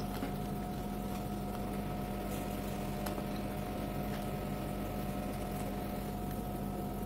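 A steady hum with a few fixed tones, with faint soft chewing sounds from someone eating.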